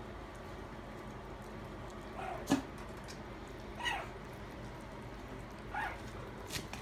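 Maltese puppies giving three short, high-pitched yelps, one or two seconds apart, some sliding down in pitch and one sliding up. A sharp knock comes about two and a half seconds in.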